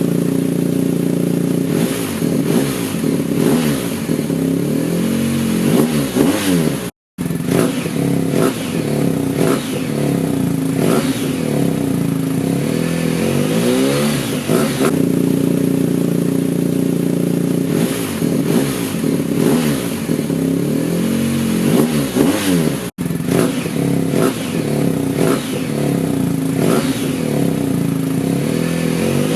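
BMW R1250 GSA boxer-twin engine through an Akrapovič end can, running at fairly steady revs while the bike is ridden. The sound breaks off briefly twice, about a quarter and three quarters of the way in.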